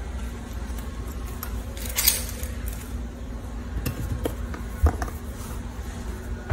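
Scissors cutting a plastic drinking straw, with a sharp snip about two seconds in, then a few light clicks as the cut straw pieces are laid on the table.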